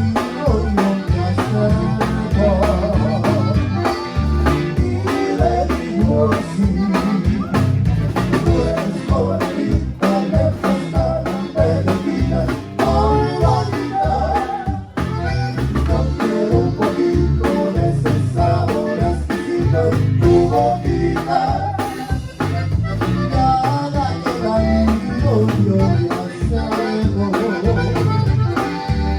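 Live conjunto band playing an instrumental stretch: accordion melody in quick runs over a steady bass and drum beat.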